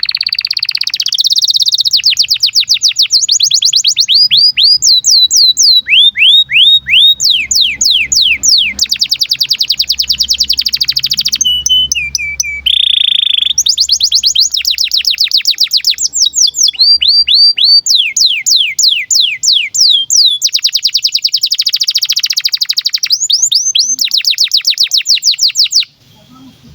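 Domestic canary in breeding condition singing a long, continuous song. It runs through rapid trills of repeated, quickly falling notes, about ten a second, switching to a new phrase every second or two, and stops abruptly near the end.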